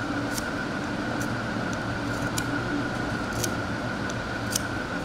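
Steady workshop hum, with a constant whine-like band over a low drone, and a few short, light ticks about once a second from handling at the workbench.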